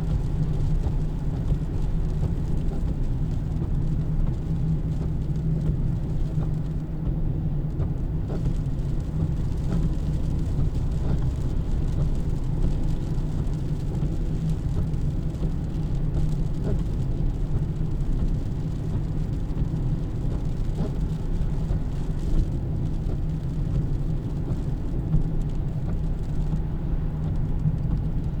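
Steady low rumble of a car on the road, engine and tyre noise running evenly.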